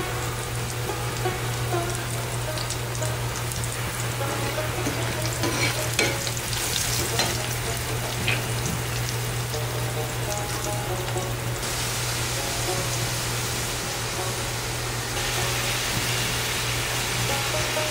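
Oil sizzling in a frying pan as sliced hog plum and green chillies fry, with a spatula stirring and scraping against the pan and a few sharp taps. The sizzle grows brighter and louder about fifteen seconds in.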